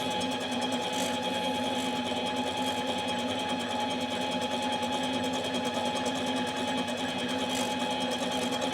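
Small metal lathe running steadily, an even motor hum with a fixed whine, while it takes the last few thousandths off the base of a chainsaw cylinder.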